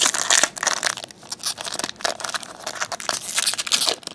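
A foil trading-card pack being torn open and crinkled by hand: a dense run of irregular, crackly rustling.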